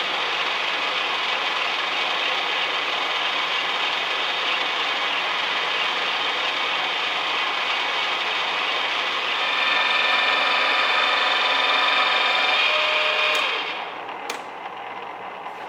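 Milling machine running with a steady high-pitched mechanical whir. About two-thirds through it grows louder, with a ringing whine, then drops away sharply to a quieter hum with a click.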